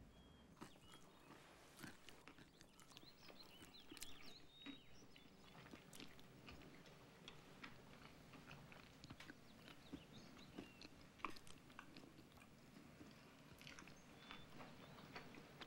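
Faint eating sounds of a peanut-butter-and-jelly meal: chewing and biting with small scattered clicks and taps of utensils and dishes, over a faint steady hum.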